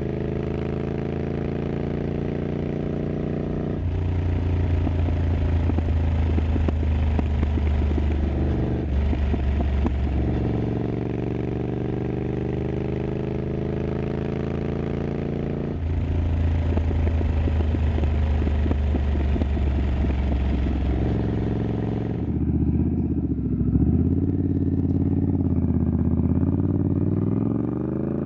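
Triumph Scrambler 900's parallel-twin engine with an aftermarket exhaust, heard while riding: it pulls up through the gears, the note climbing for several seconds and then dropping at each upshift. About 22 seconds in, the sound turns duller and the engine note wavers lower, then climbs again near the end.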